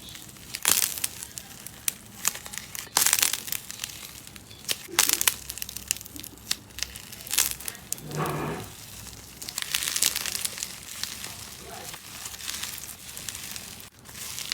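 Slime being squeezed and pressed, giving irregular crackling and popping snaps in clusters. There is one short, lower pitched sound about eight seconds in.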